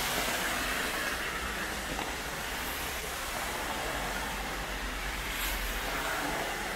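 Steady hiss of heavy rain on a street, with the wet swish of a car's tyres on the flooded asphalt as it drives past partway through.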